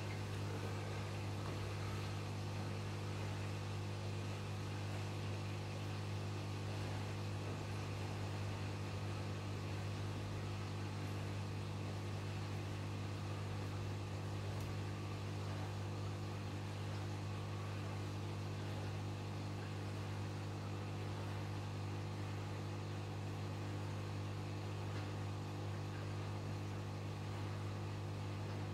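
Aquarium pump running with a steady low electric hum and overtones, over a faint hiss of moving water.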